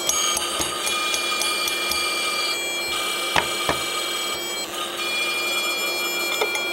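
Old 8 GB hard drive running with its cover off: a steady high whine from the spinning platters and spindle motor, with a few sharp clicks from the read/write head arm, the loudest about three and a half seconds in.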